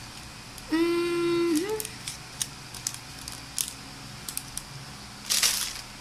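A woman hums a short closed-mouth 'hmm', held on one pitch for about a second and rising at the end, as if thinking. Then come scattered light clicks and a brief rustle near the end, from packaging being handled.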